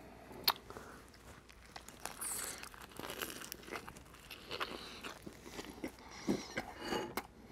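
A person biting into a cheeseburger with lettuce on a soft bun and chewing it with mouth sounds, and a sharp click about half a second in.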